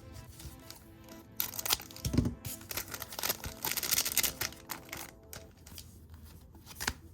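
Crinkling and tearing of a foil trading-card pack wrapper in two bouts of crackling as it is opened, over faint background music, with a single click near the end.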